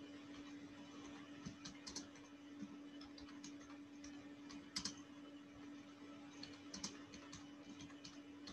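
Faint, irregular clicks of a computer keyboard, a handful of single keystrokes spread through, over a steady electrical hum.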